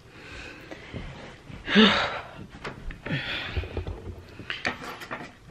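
A woman breathing out audibly, with one strong sigh-like breath carrying a little voice about two seconds in and softer breaths around it, and a few light clicks near the end.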